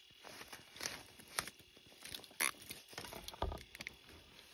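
Freshly unhooked lake trout flopping against a nylon snowsuit on someone's lap, with clothing rustle and a few scattered sharp slaps and taps, and a duller thump about three and a half seconds in.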